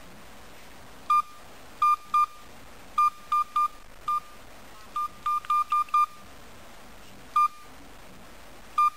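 Key beeps from a JinPeng A1308 mobile phone's keypad as its buttons are pressed: about fourteen short beeps, all at the same pitch, irregularly spaced and some in quick runs.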